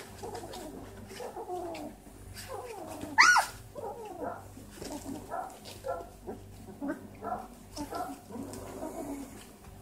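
Great Dane puppies vocalising as they wrestle: a string of short whimpers and squeaks, with one loud, high squeal about three seconds in.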